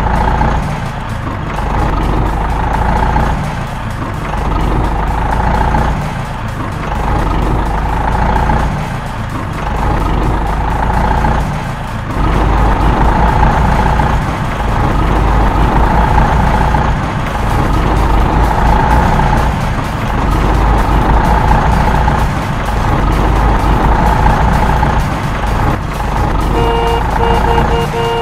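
Heavy truck diesel engine sound, a low rumble that swells and eases every couple of seconds. A quick run of reversing beeps starts near the end.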